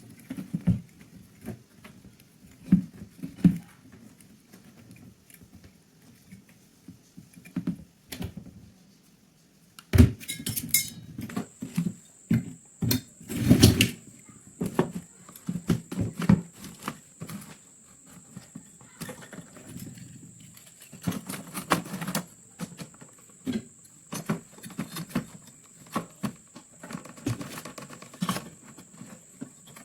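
Irregular clicks, knocks and metallic clinks of metal parts and tools being handled, with the loudest knocks about ten and fourteen seconds in. A steady high-pitched whine starts about eleven seconds in and carries on.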